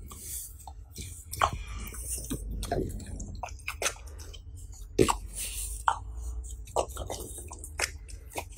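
A French bulldog chewing a raw carrot: crisp, irregular crunches and wet mouth sounds, one of the loudest about five seconds in.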